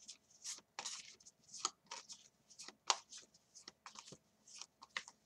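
A deck of tarot cards shuffled by hand: a quick, irregular run of soft papery slaps and flicks as the cards are dropped and pushed together, about three or four a second.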